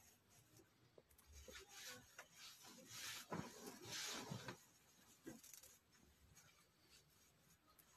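Faint rustling of fabric as a tunic is unfolded, lifted and shaken out, loudest a little before the middle.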